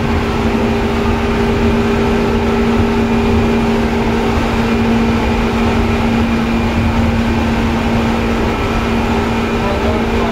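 Interior running sound of a Seibu 2000 series electric train: an even rumble of the wheels on the rails with a steady hum from the train's equipment, holding the same pitch at a constant speed.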